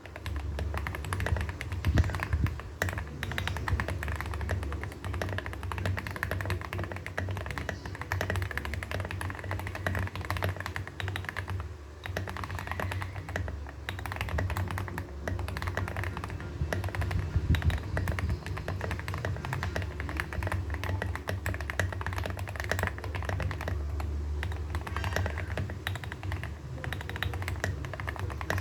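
Continuous fast typing on a Test68 custom mechanical keyboard with lubed TTC Ace switches, a steel plate, tape mod and bottom foam, and SA-profile keycaps: a dense, unbroken run of keystrokes.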